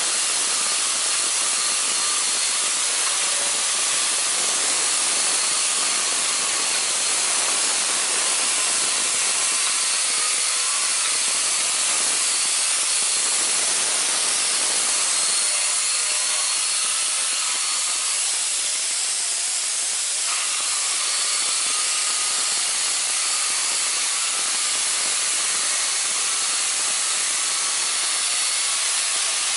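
Pneumatic right-angle die grinder with a small abrasive disc running steadily against a steel rack frame: a continuous hissing whine of spinning disc and exhausting air, with a short rougher stretch of grinding about two-thirds of the way through.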